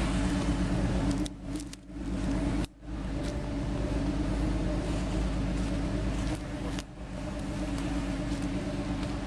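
Off-road 4x4 engine running steadily, a constant low hum that drops away briefly twice in the first three seconds.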